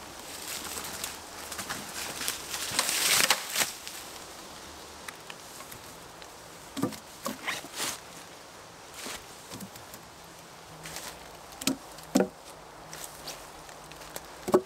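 Rustling of undergrowth and leaf litter as a long dead pole is carried through it. Then a series of wooden knocks as cut poles are laid onto a raised log bed, the loudest knock near the end.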